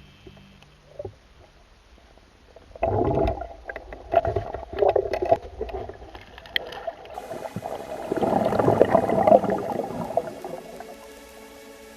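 River water sloshing and gurgling in irregular bursts, starting about three seconds in. Music comes in near the end.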